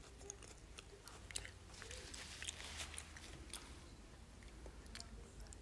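A young child chewing a pambazo, the guajillo-soaked fried bread roll, with faint crackly clicks as she eats and picks at the bread by hand.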